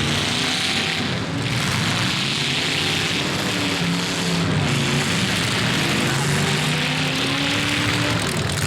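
Several demolition derby car engines revving at once, their pitches rising and falling against each other over a steady wash of crowd and engine noise.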